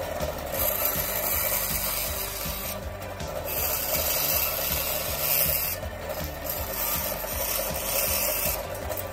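Bandsaw blade cutting through a thin metal flat bar, a loud steady hiss of the cut over the hum of the running saw. The cutting hiss breaks off briefly about three seconds and six seconds in, and again near the end, as the bar is eased back and refed.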